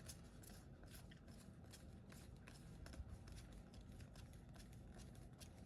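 Near silence with faint, irregular soft ticks and rustles of trading cards being flipped through by hand.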